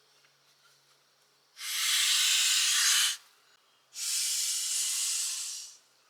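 Two bursts of loud, steady hissing, each a second and a half to two seconds long, starting and stopping sharply.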